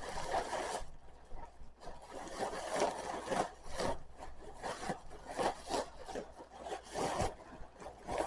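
Packaging being handled and stuffed into a bag as trash: irregular rustling and scraping, with no steady rhythm.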